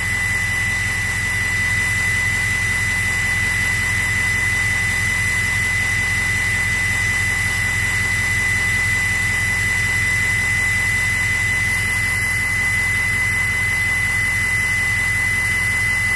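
Ford 6.0 Powerstroke V8 turbodiesel running steadily, heard at its 4-inch exhaust tip. A high, steady whistle rides on top of the engine note from start to finish.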